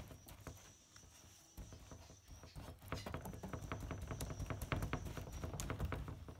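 Stiff paintbrush dabbing resin into fibreglass mat: rapid tapping strokes that become faster and louder about two and a half seconds in, working the resin in and the air out of the laminate.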